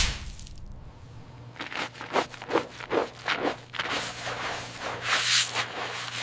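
A run of short scraping strokes, about two or three a second, followed by a longer hiss near the end.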